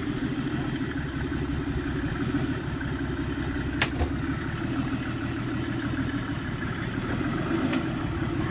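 Rock-crawler buggy's engine running steadily at low revs as it crawls up a rocky slope, with a sharp knock about four seconds in.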